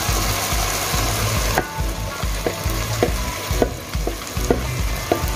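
Chopped scallion, thyme and peppers dropped into hot oil and caramelizing sugar, sizzling hard; the sizzle eases about a second and a half in. A spoon scrapes and knocks against the bowl several times as the last of the seasoning is scraped out.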